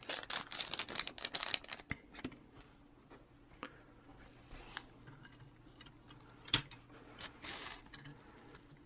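Small hard plastic toy parts being handled: a quick run of clicks and rustles, then scattered clicks, two short swishes and one sharp click about two thirds of the way in, as the G1 Ultra Magnus figure's missiles are fitted into its missile launchers.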